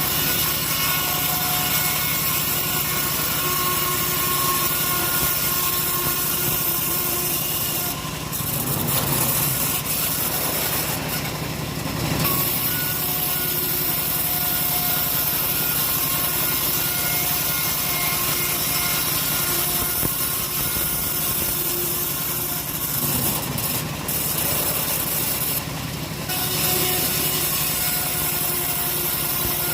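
Engine-driven sawmill saw running steadily and cutting through old teak timber, with the engine drone under the cut. The sound dips and changes briefly a few times, around a third of the way in and again near the end.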